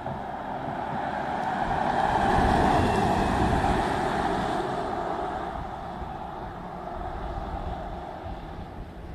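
Kia EV9 electric SUV passing at speed, heard only as tyre and road noise with no engine sound; it swells to a peak about two and a half seconds in, then fades away.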